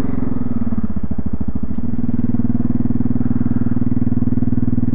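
Yamaha Grizzly ATV's single-cylinder engine running, its note shifting about two seconds in and then holding steady.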